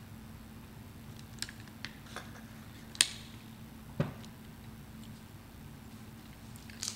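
Small clicks and taps of papers and a book being handled on a wooden pulpit, with a sharp click about three seconds in and a duller knock a second later, over a steady low hum.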